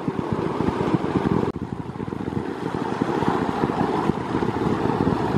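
Wind buffeting the microphone: an uneven, gusty rumble with no speech. The background changes abruptly about a second and a half in.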